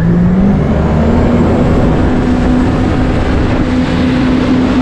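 Jet ski engine revving up as it accelerates, its pitch climbing over the first half second and then holding steady at speed, over a loud rush of spray from the hull and jet.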